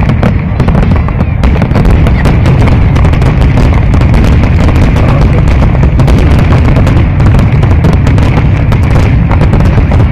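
A fireworks display in full barrage: dense, continuous crackling and popping over a heavy booming rumble, very loud and with no pause.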